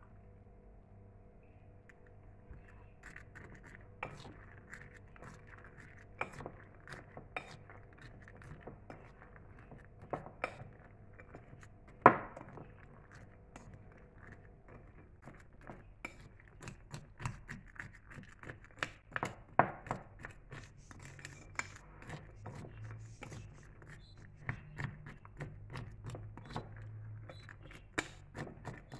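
A spoon stirring dried fruit and candied peel in a china bowl, with irregular clinks and scrapes against the bowl and one louder knock about twelve seconds in.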